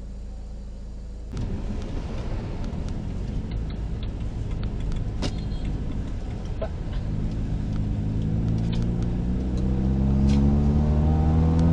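Road traffic recorded by a car's dashcam: a steady low engine hum, then, after a cut about a second in, road and traffic noise with scattered light ticks. Through the second half an engine's pitch rises steadily and grows louder as it speeds up.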